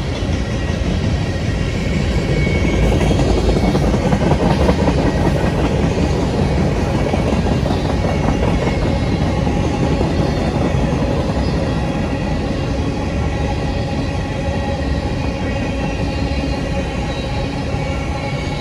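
Freight cars of a passing manifest train rolling by close at speed: a steady rumble of steel wheels on rail, loudest a few seconds in and easing slightly toward the end.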